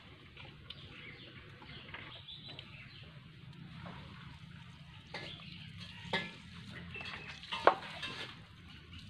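Peeled green hog plums handled in a steel bowl of water: soft wet rubbing and splashing, with a few small knocks of fruit and hands against the bowl in the second half, the sharpest near the end.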